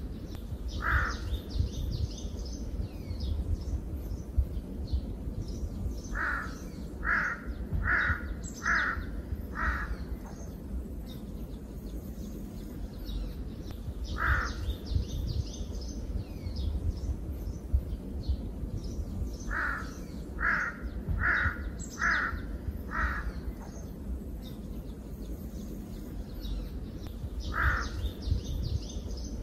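Forest bird ambience: a large bird gives loud calls, singly and in runs of five, over fainter high chirping of smaller birds and a steady low rumble. The same pattern repeats about every 13 seconds, like a looped ambience track.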